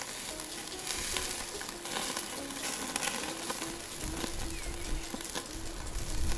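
Ribeye steak sizzling as it sears on a hot charcoal grill grate, a steady hiss with scattered crackles as rendering fat drips onto the coals.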